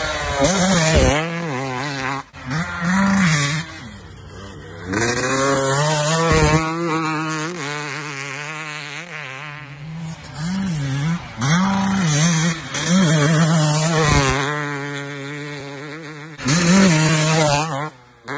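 Dirt bike engines revving up and dropping off again and again, the pitch rising and falling with the throttle, in several short clips that cut abruptly from one to the next.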